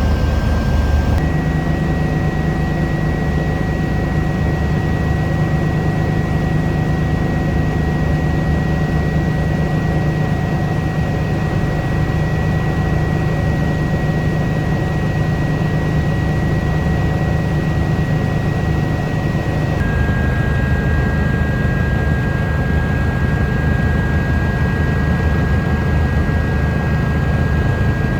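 Eurocopter EC145 helicopter running: a steady rumble of turbines and rotor with a high, even whine on top. The whine steps up slightly in pitch about a second in and drops back about twenty seconds in.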